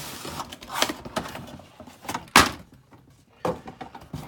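Cardboard toy box being pulled open by hand: a run of clicks, scrapes and knocks as the flaps and inner cardboard come apart, with one loud snap about two and a half seconds in.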